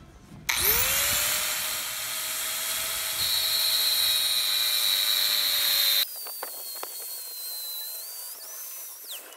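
Dremel tool with a metal cutting disc switched on, its motor spinning up to a steady high whine, cutting through a steel anchor bolt whose threaded top has mushroomed. About six seconds in the sound drops suddenly to a quieter, thinner whine.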